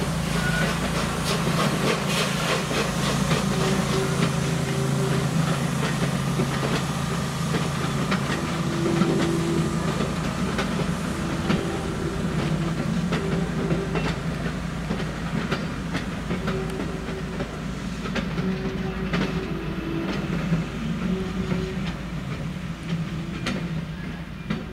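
Steam locomotive moving slowly with its passenger carriages, steam hissing and wheels clicking over the rail joints, over a steady low hum. It fades a little near the end as the carriages roll past.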